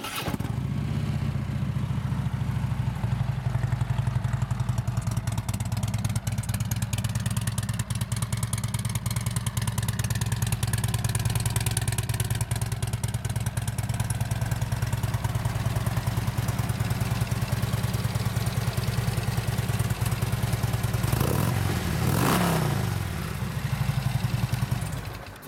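2016 Harley-Davidson Street Glide's 103-cubic-inch Twin Cam V-twin, fitted with a Vance & Hines X-pipe and slip-on mufflers, idling steadily after start-up, then revved up and back down near the end.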